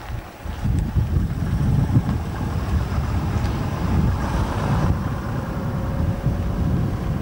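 Foden tractor unit's diesel engine running as the lorry drives past and away, with heavy wind buffeting on the microphone. A hissier swell comes about four seconds in, and a faint steady whine is heard in the second half.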